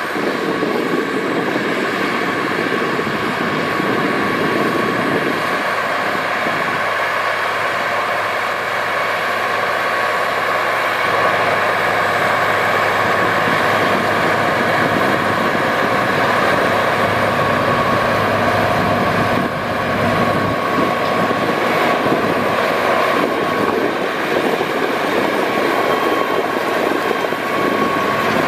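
AGCO White 6215 tractor's Cummins 8.3-litre six-cylinder diesel running steadily under load, pulling a John Deere 714 mulch-tiller through corn stalks.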